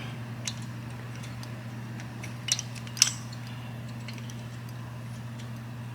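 A few light metallic clicks and clinks from handling an S&S Quickee adjustable pushrod and turning its inner rod by hand, over a steady low hum.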